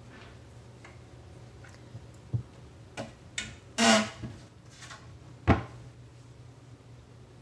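Kitchen cabinet doors and dishes being handled: a run of light clicks and knocks, a louder clatter just before halfway, and a sharp knock a moment later.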